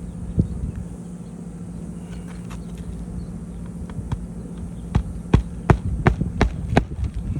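Roofing nails being hammered into the wooden nailer board under a shingle: about six sharp strikes, roughly three a second, starting about five seconds in. A steady low hum runs underneath.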